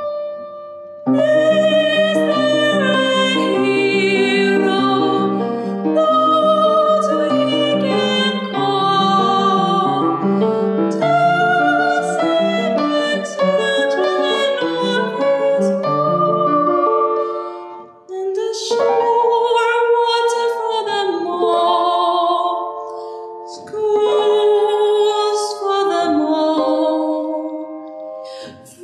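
Song: a woman singing with vibrato over piano accompaniment. The repeated piano chords drop away a little over halfway through, leaving the voice nearly alone.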